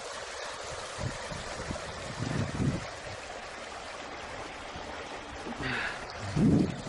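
Steady rush of a flowing stream, with two dull low thumps, about two and a half and six and a half seconds in.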